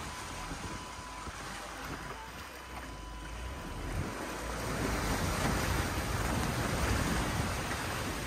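Floodwater rushing and splashing along the side of a car as it drives through shallow water, with wind on the microphone and a low rumble underneath. The splashing grows louder about halfway through.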